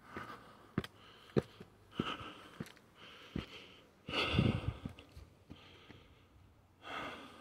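A person breathing heavily, a breath every second or so, with a louder, rumbling breath about four seconds in. Scattered short clicks and knocks come in between the breaths.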